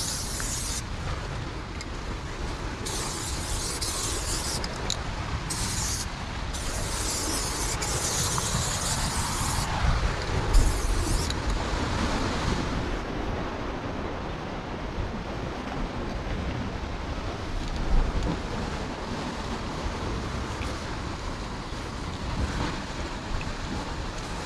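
Aerosol spray paint can hissing in about five on-off bursts, each a second or more long, over roughly the first eleven seconds, then falling silent. Under it runs a steady low rumble of wind on the microphone, with a couple of brief thumps.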